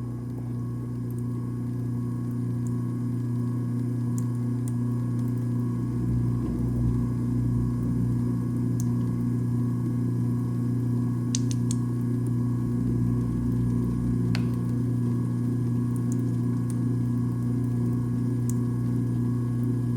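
Garbage disposal motor running with a steady hum, with a few faint ticks scattered through it.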